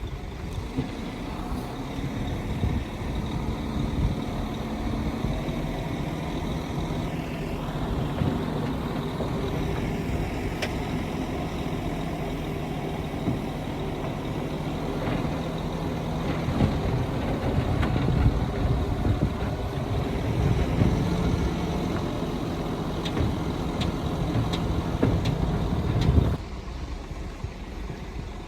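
Heavy diesel earthmoving machinery, bulldozer and dump trucks, running under load with a low, wavering engine drone and scattered knocks and clanks. It drops off sharply about two seconds before the end.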